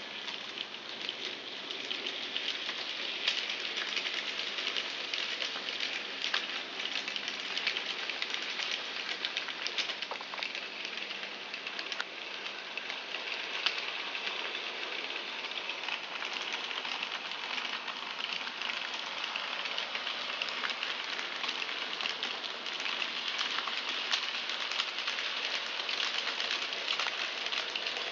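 N gauge model trains running on the track: a steady rattling hiss from the small wheels and motors, with many faint clicks.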